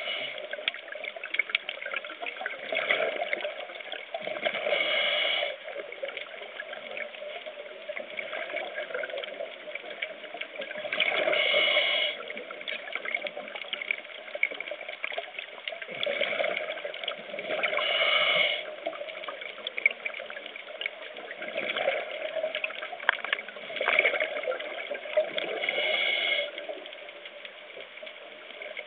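Scuba diver breathing underwater through a regulator: a regular cycle of hissing inhales and bubbling exhales, one breath every six seconds or so. Under it runs a constant light crackling.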